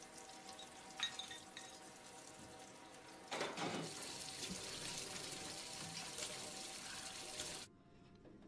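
Tap water running, with a short metallic clink about a second in. The flow gets louder about three seconds in and cuts off suddenly near the end.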